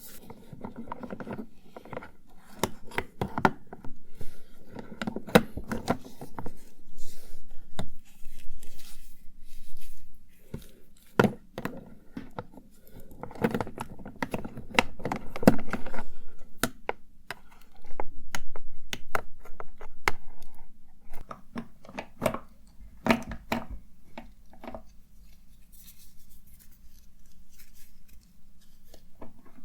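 Cosmetics and their cases being handled at close range: a run of sharp clicks and taps from lids and small containers, mixed with stretches of rustling and rummaging.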